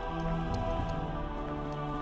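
Background music of sustained, held tones in a calm, new-age style.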